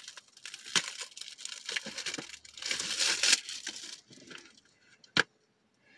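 Packaging on a Blu-ray case crinkling and tearing as it is handled and pulled open, busiest about three seconds in, then one sharp click about five seconds in.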